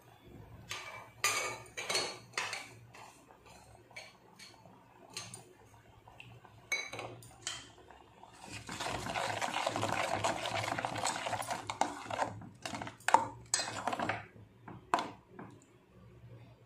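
Steel spoon stirring thick tomato gravy in a stainless steel pot: scattered clinks and taps of the spoon against the pot, with a few seconds of continuous stirring and scraping about halfway through.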